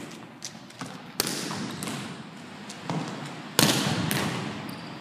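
Two loud volleyball impacts, about a second in and again near three and a half seconds, with a few lighter taps before them. Each rings on in the echo of a large hardwood-floored gym.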